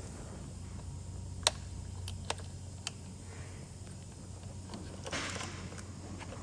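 A few sharp small clicks of the plastic parts and spring of a Steelcase Gesture chair's adjustment knob being handled and fitted, the loudest about one and a half seconds in, then a brief soft rustle near the end, over a low steady hum.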